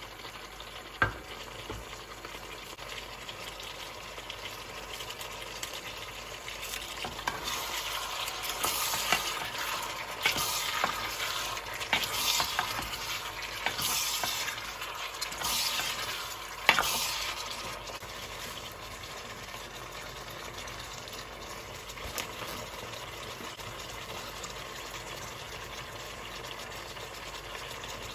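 Squid sizzling and frying in a stainless steel saucepan while a spatula stirs it. A single sharp knock comes about a second in; from about seven to seventeen seconds in the sizzle grows louder, with repeated hissing flare-ups, then it settles back to a steady sizzle.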